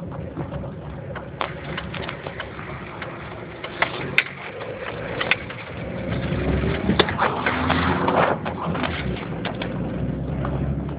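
A road vehicle driving, heard from inside the cabin: a steady engine and road drone with many small clicks and rattles. The rush of noise swells for a couple of seconds past the middle.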